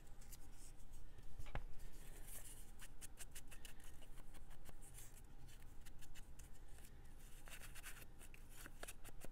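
Paper being handled at a craft table: a run of quick, light, irregular clicks and rustles, busiest a few seconds in, with one sharper knock about a second and a half in.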